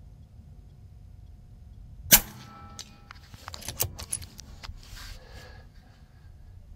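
A single shot from a .22 Daystate Huntsman Revere PCP air rifle, a sharp crack about two seconds in, followed by a run of smaller clicks and knocks over the next couple of seconds.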